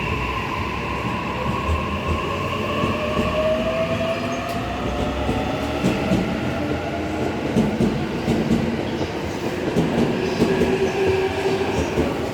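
E657 series electric train crawling through at very low speed, its motor whine rising slowly in pitch over steady rolling noise, with wheels knocking over rail joints.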